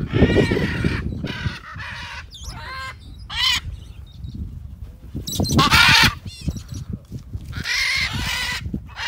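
Macaws calling in flight, about five loud squawks, one of the loudest at the start and the strongest a little past the middle.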